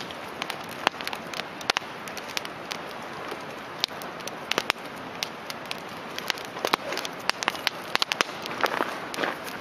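Wood campfire crackling, with many irregular sharp pops over a steady hiss.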